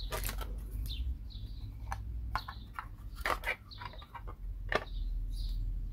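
Hard plastic stand parts clicking and knocking as the posts are handled and pushed into the square holes of the base, a few sharp clicks at irregular intervals. Short high chirps come in between the clicks.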